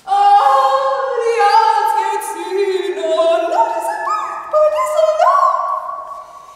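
Several voices singing long held notes in overlapping parts. They enter together at once, then repeatedly slide upward onto new pitches, and fade away near the end.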